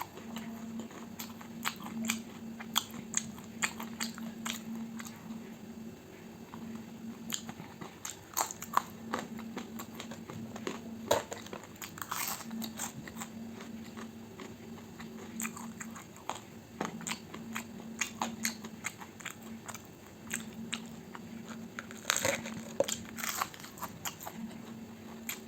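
Close-miked chewing and biting of fried breakfast food, with irregular crunches and wet mouth clicks. A faint steady hum runs underneath.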